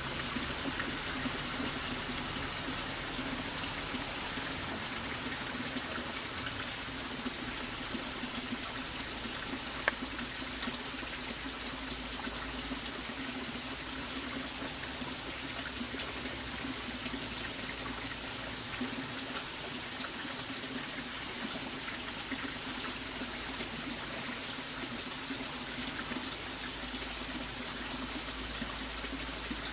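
Steady rushing of running water, like a small stream, continuous and even, with one faint click about ten seconds in.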